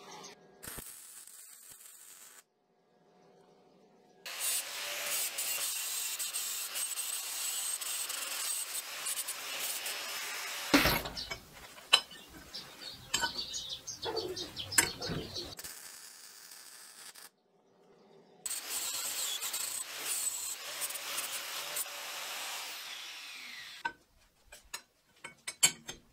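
MIG welder arc crackling steadily in two long runs as it welds the joint of a steel flat-bar ring. Between the runs comes one loud knock and a few clanks of steel being handled.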